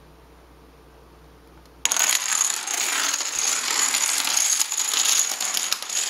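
A long chain of dominoes toppling in quick succession on a hardwood floor, a dense rapid clatter of tiles knocking into each other that starts suddenly about two seconds in and runs for about four seconds.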